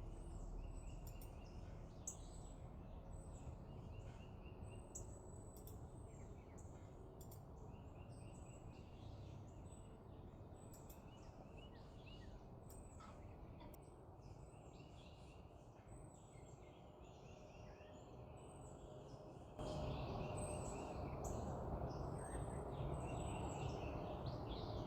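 Small backyard birds chirping, many short high calls repeated throughout, faint over a steady outdoor background hiss that becomes louder about twenty seconds in.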